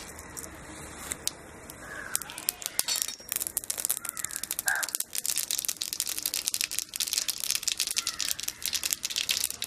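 Mustard seeds crackling and popping in hot oil in a kadai, the pops growing thick and rapid from about two seconds in. A crow caws faintly once or twice in the background.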